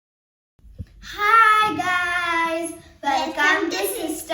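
A young girl singing, holding long notes that slide in pitch. It starts about a second in, just after a short click.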